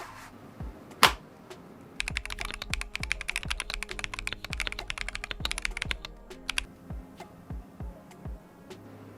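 Razer BlackWidow V4 Pro 75% mechanical gaming keyboard being typed on. One loud click comes about a second in, then a fast run of rapid keystrokes for about four and a half seconds, then a few scattered presses. Faint background music plays underneath.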